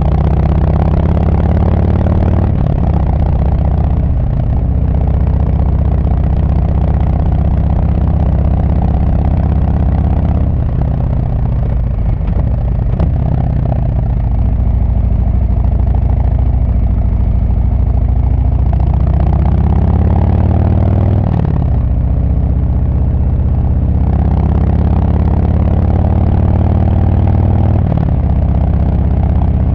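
Harley-Davidson Sport Glide's Milwaukee-Eight 107 V-twin through Screamin' Eagle Street Cannon mufflers, under way: a deep exhaust note that holds steady, drops in pitch about ten seconds in as the throttle closes, then climbs again under acceleration until an abrupt gear change a little past twenty seconds, after which it runs steady again.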